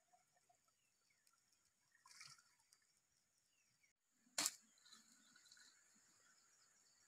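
Near silence with faint outdoor ambience, broken by a soft rustle about two seconds in and a single sharp knock about four and a half seconds in.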